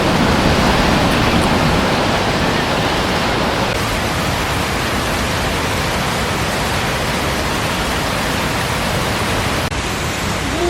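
Loud, steady rushing noise of water, with a brief dip about three-quarters of a second before the end.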